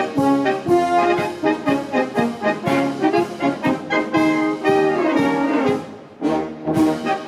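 Brass band music, a steady run of short, rhythmic notes with a brief break about six seconds in.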